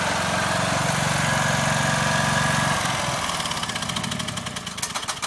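Riding lawn mower engine running steadily, then dying down over the last couple of seconds into a slowing run of ticks.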